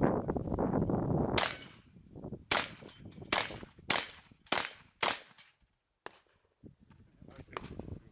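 Six shots from a 12-gauge AK-pattern shotgun, fired one after another at an uneven pace of about one every half second to a second, each with a short echo. A rustling noise on the microphone comes before the first shot, and a faint click follows the last.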